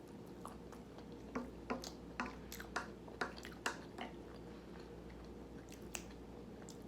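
Close-miked chewing of food: soft, wet mouth clicks and smacks, about a dozen of them, most in the first four seconds, then fewer.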